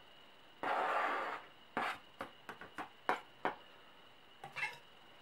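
Knife blade scraping chopped green onions off a plastic cutting board into a glass bowl: one scrape lasting under a second, then a run of short light knocks and taps as the board and blade knock the last bits off.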